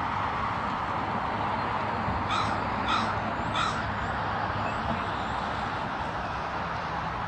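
A crow cawing three times in quick succession, about two seconds in, over the steady noise of a twin-engine turboprop airliner taking off and climbing away.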